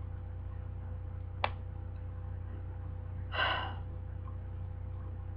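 A woman's short, audible breath about three and a half seconds in, over a steady low electrical hum, with a single sharp click about a second and a half in.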